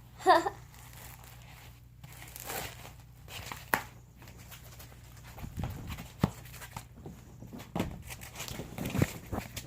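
Cardboard being torn apart and handled: tearing, rustling and scattered knocks, with a short voice-like sound right at the start.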